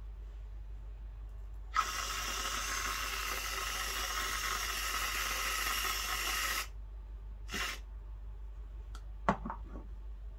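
Aerosol can of whipped cream spraying onto a mug of coffee: a steady hiss of about five seconds that starts with a click and cuts off suddenly. A few light knocks follow near the end.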